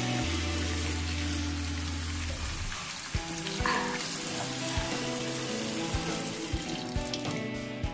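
Bathroom sink tap running into the basin, a steady hiss that drops away near the end, with a few light knocks in the second half.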